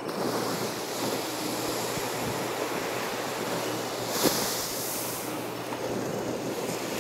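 Atlantic surf washing onto a sandy beach, with wind buffeting the microphone; the hiss swells as a wave breaks about four seconds in, with a brief click at about the same moment.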